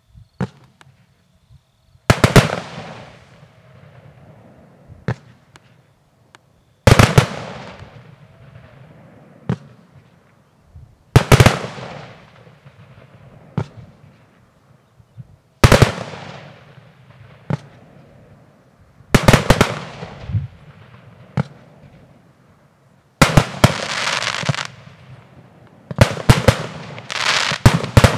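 Aerial firework shells bursting with loud bangs about every four seconds, each bang dying away slowly, with fainter single pops between them. Near the end the bursts come thick and fast, overlapping.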